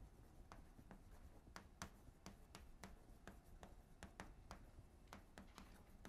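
Chalk writing on a blackboard: faint, irregular sharp taps and scrapes, about three a second.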